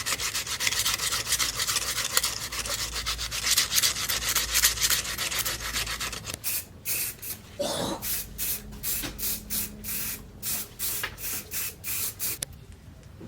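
Abrasive hand rubbing strokes, as in sharpening or sanding. They are rapid and run together for about six seconds, then come as slower, separate strokes about two a second, and stop shortly before the end.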